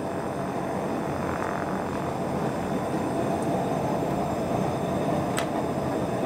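Steady rushing of steam escaping from an opened plywood steam box heated well over 200 degrees, with one light knock about five seconds in.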